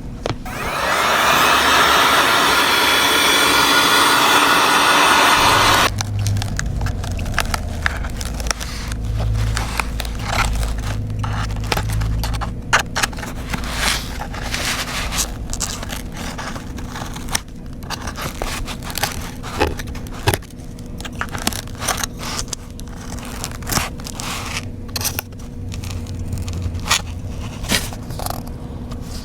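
A loud steady hiss for about six seconds that cuts off suddenly, then a long run of small scraping, clicking and crackling sounds from hand tools working on a cracked iPad.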